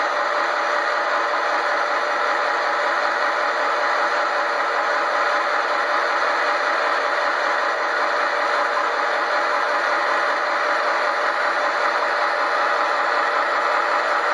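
Train running with a steady rattle and clatter.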